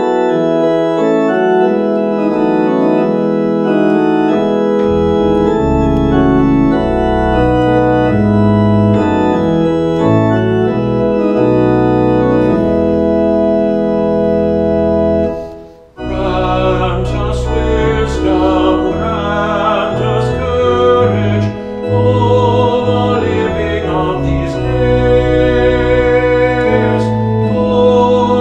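Church organ playing slow, sustained chords over a low bass line. About halfway through the music breaks off for a moment, then resumes with a busier, wavering sound.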